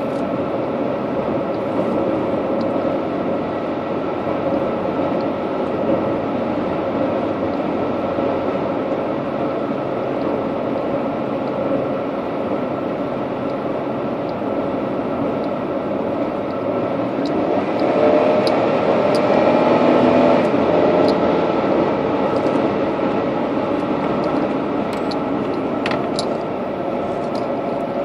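Steady road and engine noise of a car driving on a paved highway, heard from inside the cabin, swelling louder for a few seconds past the middle.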